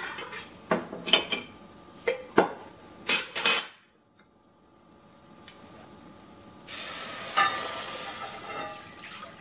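A metal opener clicks and clinks against the lid of a glass canning jar as the lid is pried off, in a run of sharp knocks over the first few seconds. About seven seconds in, milk poured into a hot, dry stainless saucepan where spices were toasting sizzles, then dies down over the next two seconds.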